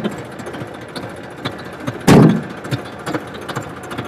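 Massey Ferguson 35 DI tractor's diesel engine idling steadily, its hydraulic lever set to lower the trolley. A loud, short thump sounds about two seconds in, with a smaller one at the very start.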